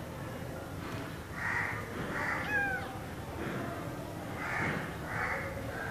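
Hungry orphaned kitten mewing in short, repeated cries at an empty feeding bottle, with one higher, falling mew about halfway through.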